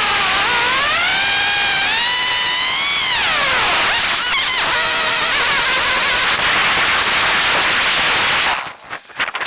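FPV racing quadcopter's four brushless motors (EMAX ECOII 2306 1900KV on 6S) and props, heard through the onboard camera's microphone: a loud, harsh whine whose pitch falls, climbs and falls again as the throttle changes. It cuts out about eight and a half seconds in, leaving a few short broken bursts.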